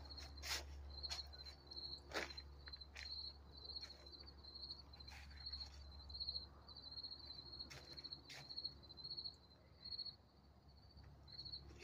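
A cricket chirping steadily, short pulsed chirps coming about every half second, with a few sharp clicks and a low steady rumble underneath.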